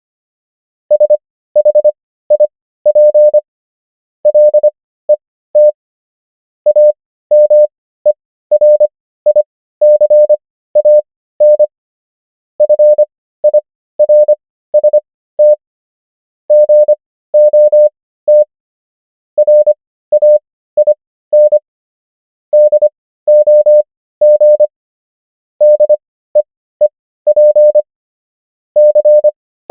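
Morse code keyed as a single steady mid-pitched beep, short dots and longer dashes, starting about a second in. The letters are sent at 25 wpm with Farnsworth spacing stretching the gaps between letters and words to an overall 15 wpm.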